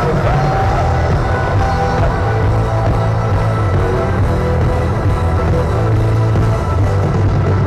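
Live band playing worship music over a large concert PA, heard from within the crowd.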